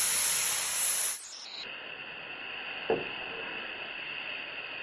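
Meat sizzling loudly on a discada disc pan, cutting off suddenly about a second in to a quieter steady hiss, with one short knock near the three-second mark.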